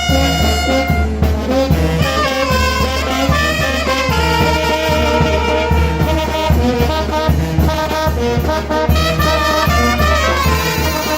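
Mexican village brass band (banda de viento) playing: trumpets and trombones carry a melody of held notes with vibrato over a steady low bass beat.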